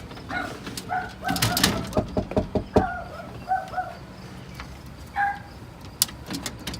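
Short bird calls repeating again and again, with a quick run of clicks and knocks about one to three seconds in.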